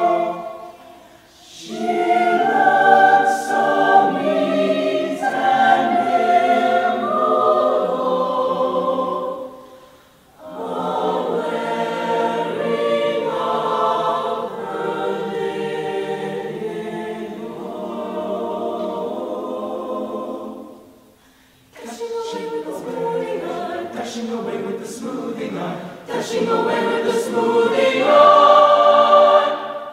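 Mixed choir singing in phrases, with three short breaks between phrases.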